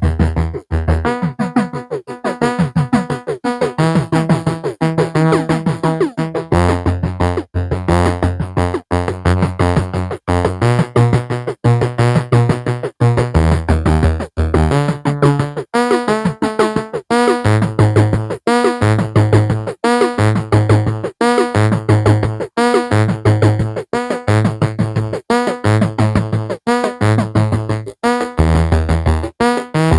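Electronic synthesizer music: a held bass line that steps between notes every second or so, under a fast run of repeating higher notes, pulsing at a steady rhythm.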